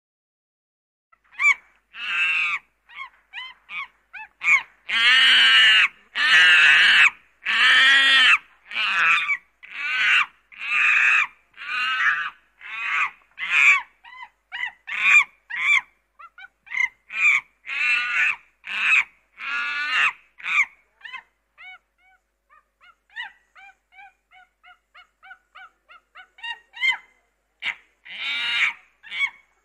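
A long series of loud, high, honking animal cries, one after another, the longest about a second each; in the last third they give way to softer short chirps before a few loud cries return near the end.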